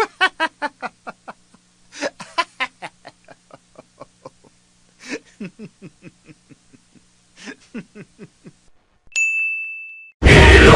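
A meme sound-effect clip of rapid, short vocal bursts, like laughter, over a low steady hum, which stops after about eight and a half seconds. A single high beep about a second long follows, then loud music cuts in near the end.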